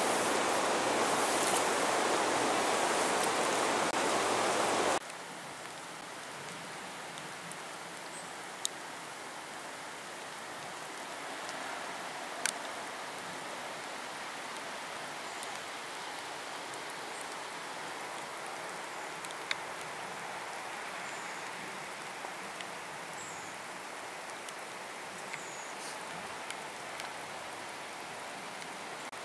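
Steady rush of a fast mountain river over rocks for about five seconds, then it cuts off abruptly to a quieter, steady hiss of rain and running water, with a few sharp drip ticks.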